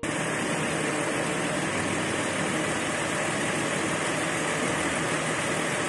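Horned viper hissing: one long, steady hiss that starts suddenly and cuts off abruptly.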